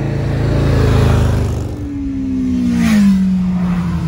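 An oncoming motorcycle passing close by the car. Its engine builds to a peak about a second in, then its note falls steadily in pitch over the last two seconds as it goes past.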